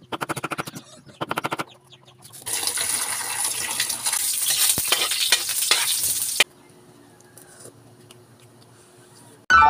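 A kitchen knife chopping rapidly on a wooden cutting board in two quick runs of strikes, then tap water pouring onto chopped bottle gourd in a metal bowl as a hand stirs it, a steady splashing hiss that cuts off suddenly.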